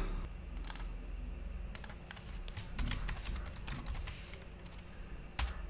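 Typing on a computer keyboard: short, scattered runs of key clicks.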